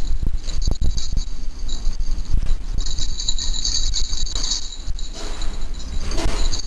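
Rumbling bumps and scuffs on the camera's microphone as a Maltese puppy paws and noses at it, with a light jingling from about three seconds in.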